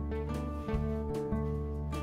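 Background instrumental music, with held notes over a steady bass.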